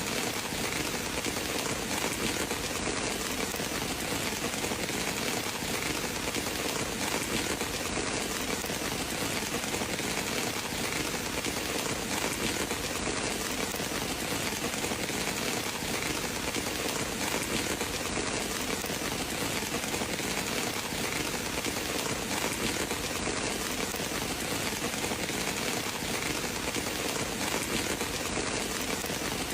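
Steady rain falling, an even hiss with no thunder claps or other sudden sounds.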